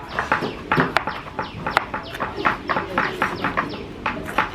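Kitchen knife chopping ingredients on a cutting board: quick, uneven knocks, several a second.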